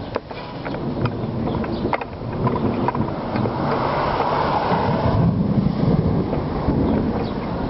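Wind buffeting the microphone outdoors in a thunderstorm, then a low rumble of thunder building about five seconds in.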